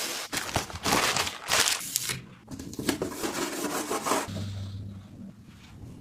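Rustling, scraping and sharp clicks from a tablet case and its packaging being handled, busiest in the first four seconds and quieter after.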